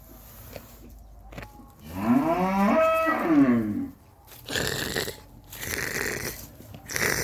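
Camel calling: one long bellow about two seconds in, its pitch rising and then falling, followed by rough, noisy grumbling sounds.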